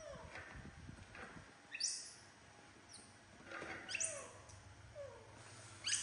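Young macaque monkeys calling: about three sharp, high squeaks that slide down in pitch, with softer, lower falling coos between them, over a steady low hum.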